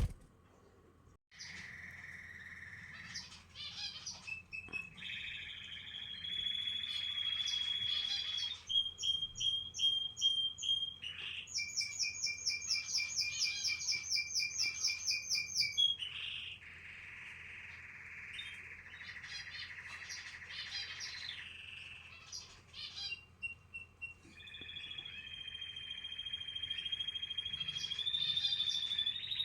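Canary singing a long, varied song of held whistles, trills and fast repeated notes, each phrase lasting a few seconds before switching to the next. It begins about a second in.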